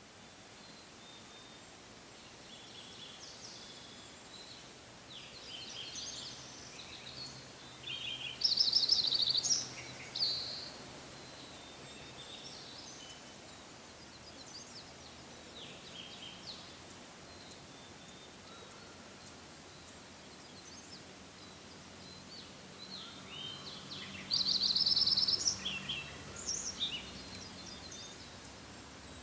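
Songbirds singing in a forest over a faint steady outdoor hiss: scattered high chirps, and two loud song phrases, each with a fast high trill, about eight seconds in and again near the end.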